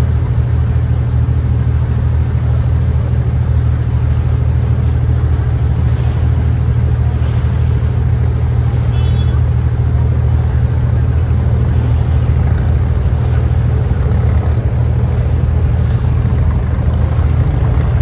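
An engine running steadily with a loud, low drone.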